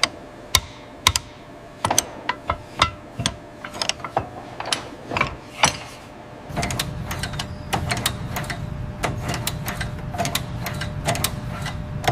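Metal hand tools clicking and clinking against engine-block parts in a run of sharp, irregular clicks and clanks. About six and a half seconds in, a steady low machine hum joins, and the clicking becomes quicker and more even, like a ratchet wrench.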